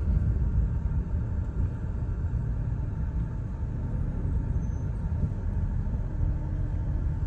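Steady low rumble of a car driving, with road and tyre noise and no distinct knock standing out.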